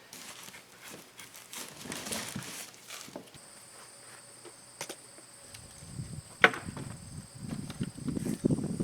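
Faint rustling and handling noises with scattered clicks, one sharp click about six and a half seconds in, then rougher, louder scraping and knocking building near the end.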